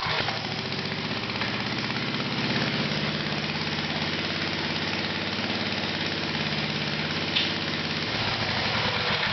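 Go-kart's 5 horsepower single-cylinder engine, pull-started and catching right away, running steadily for about eight seconds. Near the end it is shut off and runs down to a stop, as the kill switch cuts it.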